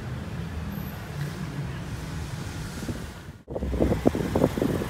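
Steady low background rumble, then after an abrupt cut about three and a half seconds in, a quick run of knocks and clatter as a wooden stretcher-ramp panel in the back of the ambulance is handled.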